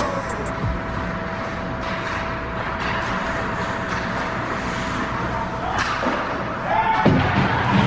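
Ice hockey rink sound during a game: a steady wash of noise from the ice and arena, with a faint hum that stops about three-quarters of the way through.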